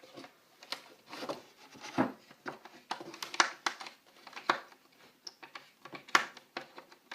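Flat steel Wallet Ninja multi-tool working a skateboard truck's mounting hardware: irregular metallic clicks and knocks with scraping in between as the card-shaped tool slips and catches on the nut and bolt, an awkward fit for the job.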